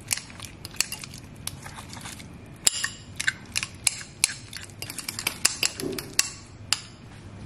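Metal spoon clinking and scraping against a ceramic bowl as softened butter is mashed and stirred in it: irregular sharp clicks, several a second, busiest in the middle.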